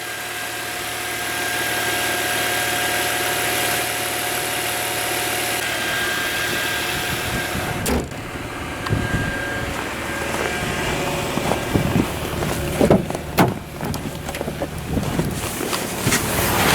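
Volvo S80 3.2's inline-six idling steadily shortly after a cold start, with no whine from the power steering pump: the pump runs quietly now that the air leak into the system has been fixed. A sharp click about halfway through and a few short knocks near the end.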